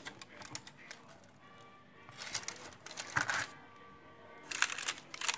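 Soft background music with several short bursts of crinkling from the baking paper on a tray being handled.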